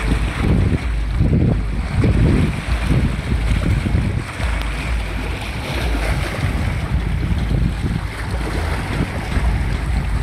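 Wind gusting on the microphone in uneven low rumbles over the rush of river water lapping and splashing against shoreline rocks.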